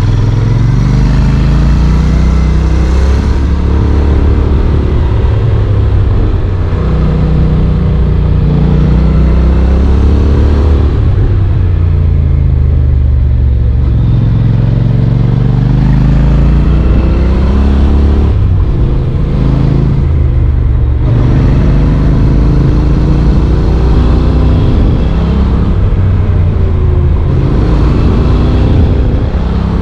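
Honda NC750X's parallel-twin engine heard from the bike while riding, its pitch repeatedly rising as it accelerates and falling as the throttle is closed.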